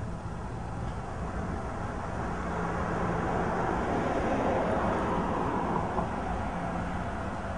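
Street traffic noise: a car goes by, its sound rising to a peak around the middle and fading again, over a steady low hum.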